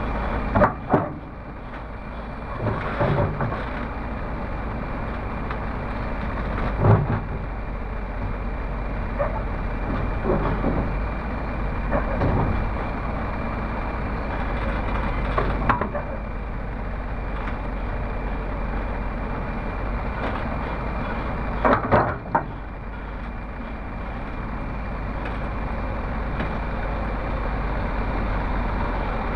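Komatsu PC300 hydraulic excavator's diesel engine running steadily as the boom and bucket are worked, with a handful of sudden metallic knocks and clanks.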